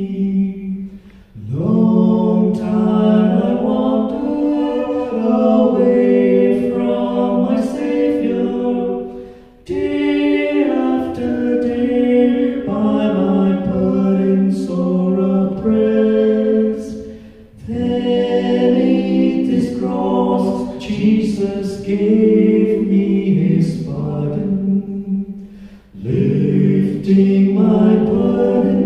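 A man and a woman singing a church song together through microphones, unaccompanied, in long phrases of about eight seconds, each followed by a brief pause for breath.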